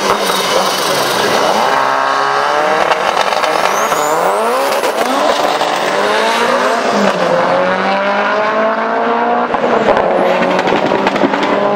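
Drag race car engine at full throttle, launching from the start line and accelerating hard down the strip. Its pitch climbs and drops back at each gear change, several times.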